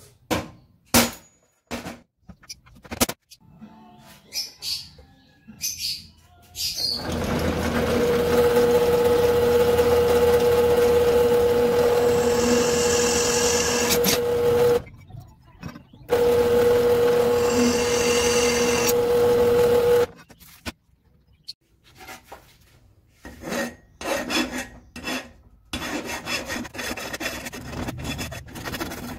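A hammer strikes a centre punch on a metal bar a few times. Then a bench drill press runs with a steady hum while its bit cuts through the bar; it stops briefly and starts again, then stops. Near the end a hand file rasps back and forth on the bar held in a vise.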